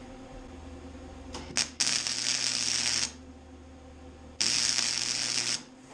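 Electric arc welder laying two short welds on a steel flat-bar bracket, the arc crackling steadily for about a second each time, with a steady electrical hum underneath. A couple of sharp clicks come just before the first weld.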